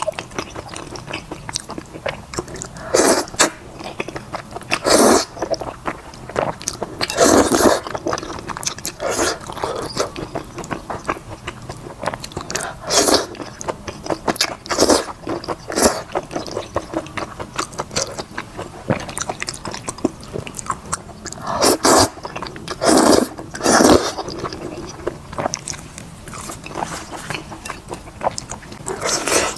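A person chewing and slurping saucy wide noodles and chicken from Xinjiang big plate chicken: continual wet mouth sounds, with louder bursts every few seconds.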